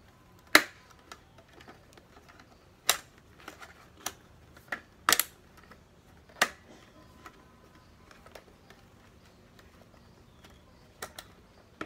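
Sharp plastic clicks and taps as a smoke-tinted bubble visor is pressed and fitted onto an open-face helmet: about eight irregular clicks, the loudest about half a second in, and a quick pair near the end.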